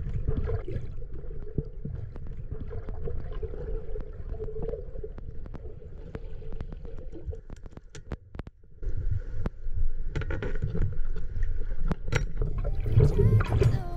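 Underwater sound picked up by an action camera in its waterproof housing: a steady low rumble of water with many scattered sharp clicks and crackles. The sound briefly drops away a little past the middle, then resumes.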